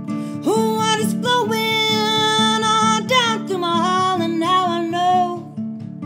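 Acoustic guitar strummed in a steady rhythm while a woman sings two long held notes, the first coming in about half a second in and the second about three seconds in, easing downward.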